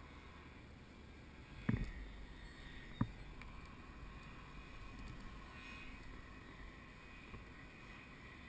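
Faint, steady drone of a distant powered paraglider's engine overhead. Two sharp knocks come close to the microphone, one about two seconds in and one about three seconds in.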